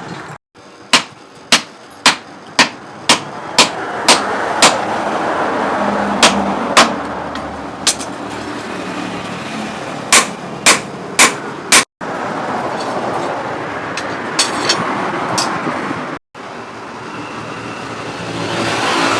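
Hammer blows on steel at a blacksmith's anvil: sharp ringing strikes about two a second, in runs of several blows, over a steady mechanical noise. The sound cuts off abruptly twice.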